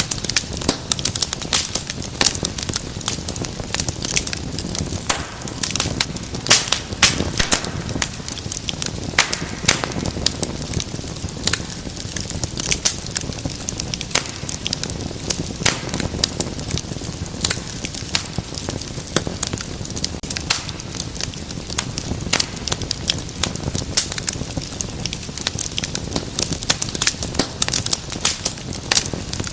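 Wood fire in a fireplace crackling: frequent sharp, irregular pops and snaps over a low steady rush of flames.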